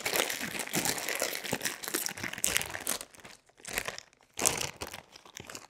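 Plastic potato chip bag being pulled open and crinkled: dense crinkling for about three seconds, then a few shorter rustles of the bag.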